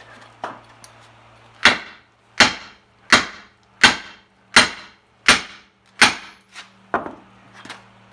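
Hammer blows: nine sharp, evenly paced strikes, a little more than one a second, starting about a second and a half in.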